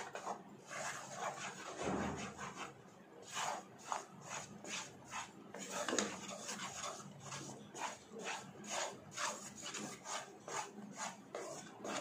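Wooden spatula scraping and stirring a thick coconut-powder and milk-powder fudge mixture around a nonstick pan, in repeated strokes about two or three a second, as the mixture thickens.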